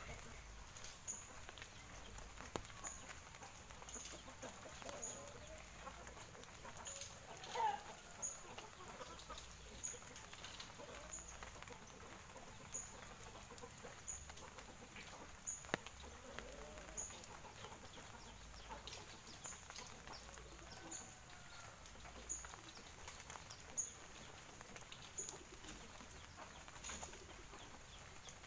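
Domestic chickens clucking, with one louder call about seven to eight seconds in.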